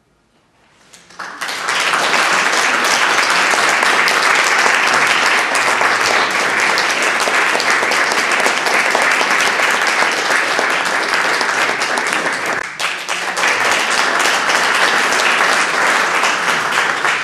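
Audience applauding. It swells in about a second in and dips briefly about three quarters of the way through.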